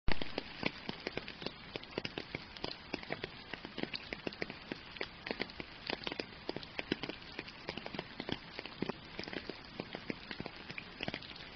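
Steady rain, with many separate drop hits standing out over a constant hiss; it begins suddenly with one sharp hit.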